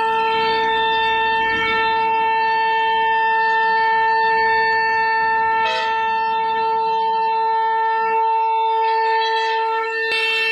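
CNC router spindle running with a steady whine while its bit carves a wooden door panel, over a rough cutting noise. The low cutting noise drops away about eight seconds in.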